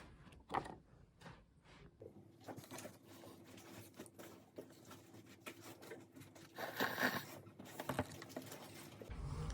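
Faint handling noises: scattered light clicks and taps with rustling, one louder rustle about seven seconds in, over a faint steady hum that starts about two seconds in.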